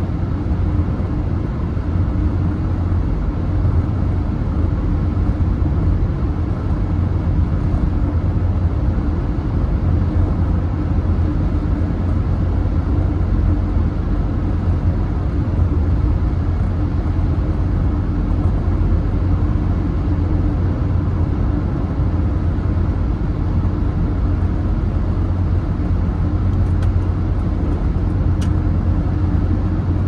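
Car driving at highway speed through a road tunnel: steady low tyre and engine rumble heard from inside the cabin.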